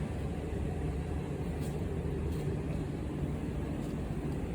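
Reverse vending machine running with a steady low hum while it checks the inserted PET bottle, with a couple of faint ticks.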